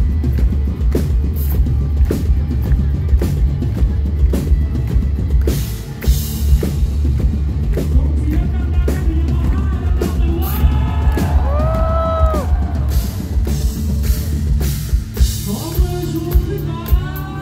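Live rock band playing: drum kit, electric guitar and bass guitar, heavy on the low end. A singer's voice comes in over it in the second half.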